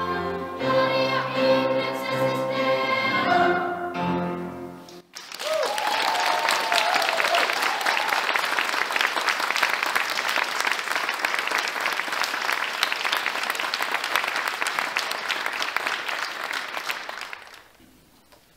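Youth choir singing a held closing chord that stops about four and a half seconds in. Then audience applause fills the reverberant church and fades away near the end.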